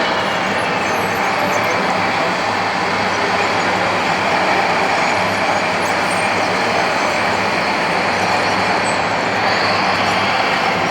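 Radio-controlled model construction machines running, a steady motor and hydraulic pump whine over a continuous mechanical hum.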